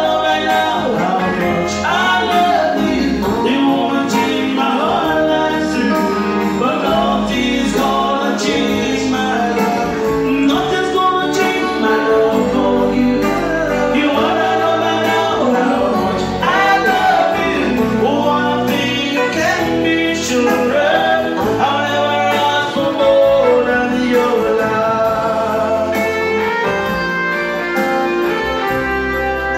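A man singing into a microphone over instrumental accompaniment that includes guitar.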